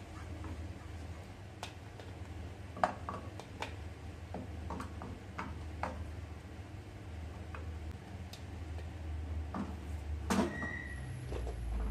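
Light, irregular taps and clicks as cut pieces of mochi are set one at a time into a non-stick frying pan, two of them sharper, about 3 seconds and 10 seconds in, over a low steady hum.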